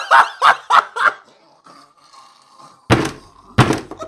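A quick string of about five short yelp-like calls in the first second, then two loud heavy thuds about three seconds in, half a second apart.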